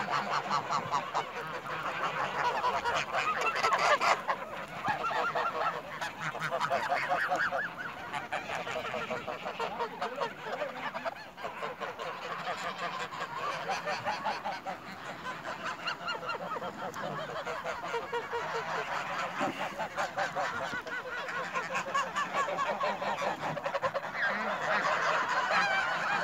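A large flock of white domestic geese honking continuously, many calls overlapping into a constant din, swelling a little early on and again near the end.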